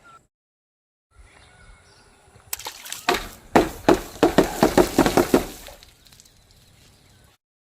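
Something soft and wet being crushed in a quick run of about a dozen strokes, with liquid splashing, starting a couple of seconds in and fading out.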